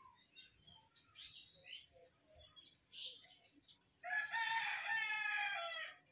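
A rooster crowing once, a single loud call lasting about two seconds that starts about four seconds in and drops in pitch at its end. Faint scattered bird chirps come before it.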